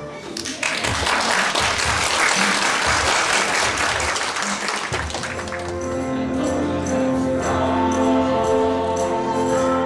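Audience applauding for about five seconds, then a new piece of music starts: sustained chords with a light, regular high-pitched beat.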